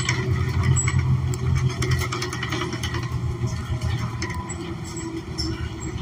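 Inside a 2014 New Flyer XN40 city bus under way: its Cummins Westport ISL G natural-gas engine and drivetrain give a steady low drone, with scattered light clicks and rattles on top.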